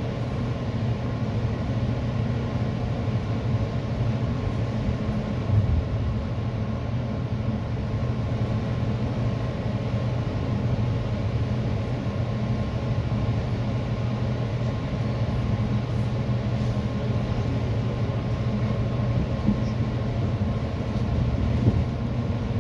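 EXO commuter train running along the track, heard from inside a passenger coach: a steady rumble of wheels on rail with a low hum. A brief knock comes about five seconds in and another near the end.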